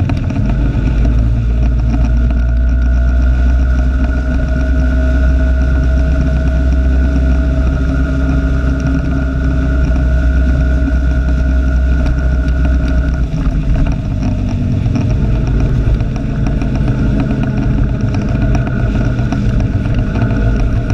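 Motorbike engine running on the move, with heavy low rumble and a steady high whine that ease off about two thirds of the way through.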